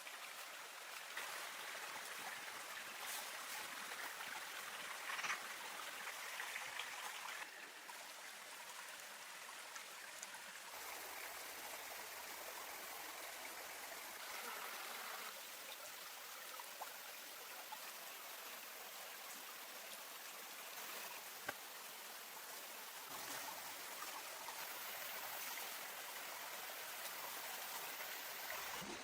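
Water of a stream or small waterfall running steadily, its tone shifting abruptly a few times, with a few faint knocks.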